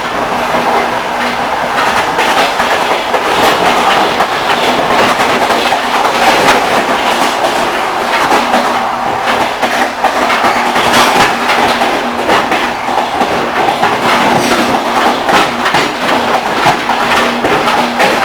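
Railway carriage wheels clattering over the rail joints: a continuous rolling rumble full of irregular clicks and knocks, with a steady low hum underneath.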